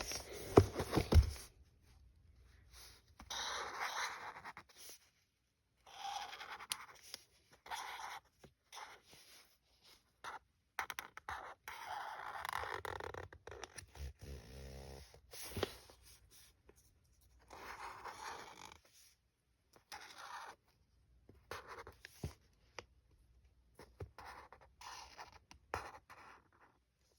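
A drawing tool scratching across paper in short, irregular strokes with pauses between them, and a few knocks about a second in.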